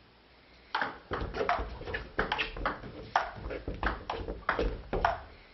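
Table tennis rally: a celluloid ball ticking back and forth between bats and the table in quick, sharp clicks, about four a second, starting under a second in.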